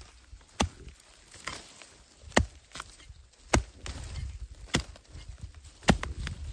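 Hoe chopping into soil and leaf litter to dig out a bamboo shoot: five sharp strikes, roughly a second apart, with quieter knocks between them.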